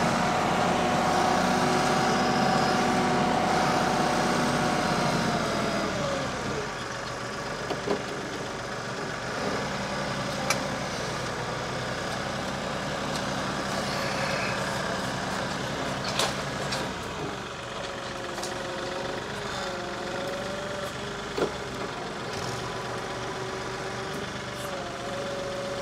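Kioti compact tractor's engine running while the front-end loader and grapple are worked to pick up a log. A steady whine drops in pitch about six seconds in, and a few sharp knocks come through over the engine.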